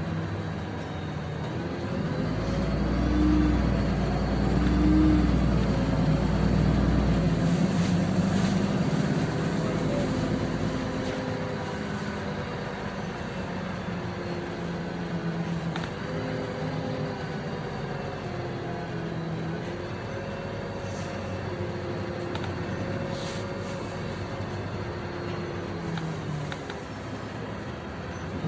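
LiAZ-5292.65 city bus's diesel engine and drivetrain running while the bus drives, heard from inside the passenger cabin over road noise. It gets louder about two seconds in as the bus pulls harder, then eases back to steady running.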